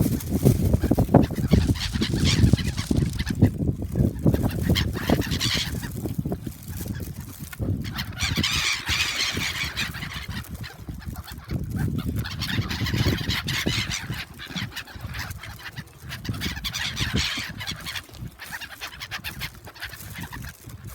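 A flock of gulls calling noisily, many calls overlapping, as they crowd in to be fed. The calling swells and fades in waves over a steady low rumble.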